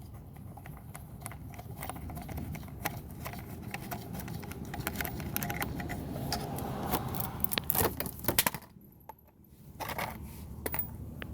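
Irregular small metal clicks, rattles and scrapes of hand tools working on the bolts that hold a car's fog light. The clicking grows busier towards the end, then drops away briefly near the close.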